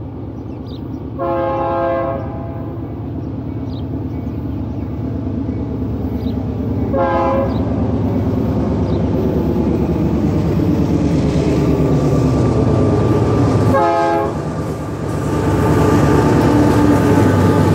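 GE AC4400CW diesel locomotive leading a double-stack container train, sounding its horn three times, each blast under a second and about six seconds apart. Under the horn the diesel engine runs steadily and grows louder as the locomotive approaches, loudest near the end as it passes close by.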